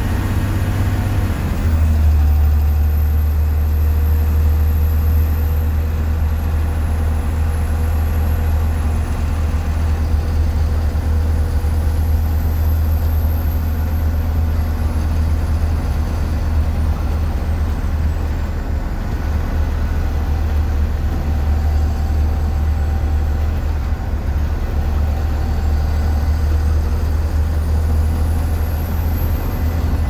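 International DT466E inline-six turbo diesel of a 2004 Blue Bird 3800 school bus running at highway cruising speed, heard from the front of the cabin: a steady low drone over road noise.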